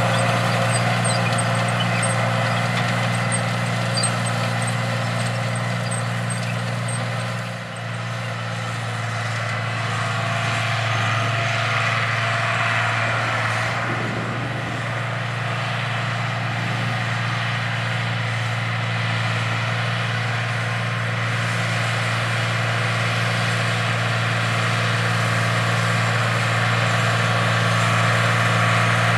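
International Harvester farm tractor's engine running steadily under load as it pulls a planter through the field, a constant low drone with a brief dip in loudness about a third of the way through.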